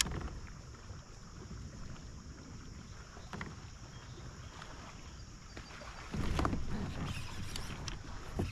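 Wind rumbling on the microphone of a kayak out on the water, with water lapping at the hull; the rumble gets louder about six seconds in.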